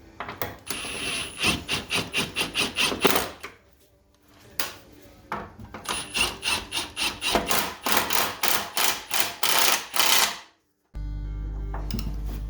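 Power tool, likely an impact wrench, hammering in two long runs of rapid blows with a high whine under them, broken by a short pause. It stops suddenly near the end and a steady low hum follows.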